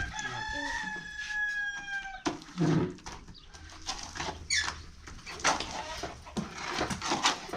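A rooster crowing once, a long, steady call of about two seconds that falls slightly in pitch at the end, followed by scattered knocks and clatter.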